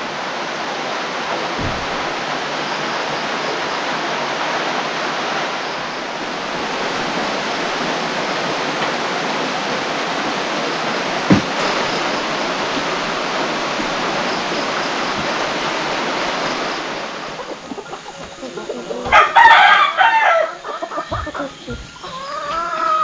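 Heavy rain falling as a steady hiss, with a single sharp knock about 11 seconds in; the rain sound drops away about 17 seconds in. Near the end a loud call rising and falling in pitch, followed by a second shorter one.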